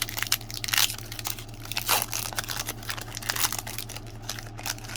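Trading cards and their crinkly pack wrapper being handled: a busy run of quick rustles, crinkles and clicks, over a steady low electrical hum.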